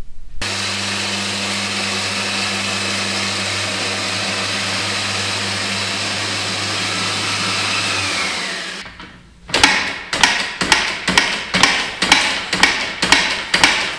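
A 1979 Yamaha dirt bike engine being kicked over with its kickstarter about ten times, roughly twice a second, during a compression test. Before the kicks, a steady mechanical hum with hiss runs for about eight seconds and then stops.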